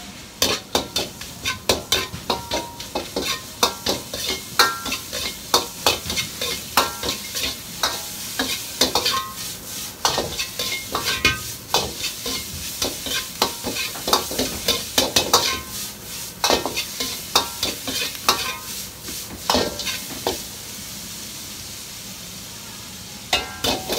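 Metal utensil clattering and scraping against a hot frying pan in rapid, ringing strokes while food is stir-fried over a steady sizzle. The clatter stops about 20 seconds in, leaving only the sizzle, and starts again briefly near the end.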